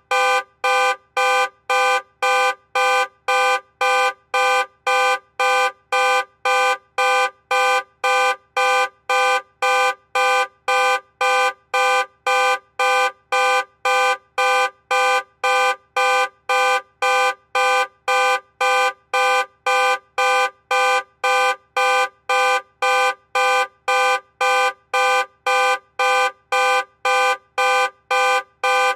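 Car alarm going off, the car's horn sounding in steady, even pulses about twice a second, every honk on the same pitch.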